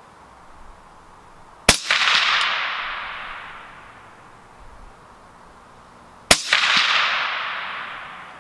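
Two shots from a suppressed AR-15-style .223 Wylde rifle, about four and a half seconds apart. Each is a sharp crack followed by a long echo that dies away over about two seconds.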